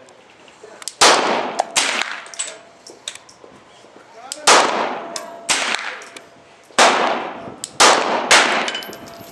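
9mm Glock 19 pistol fired seven times at an uneven pace, each shot sharp with an echoing tail.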